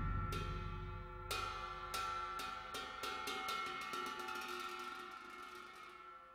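Music of struck metal percussion: a deep stroke just before rings on with several steady overtones and slowly fades, while a string of lighter metallic strikes sounds over it, dying away to near quiet near the end.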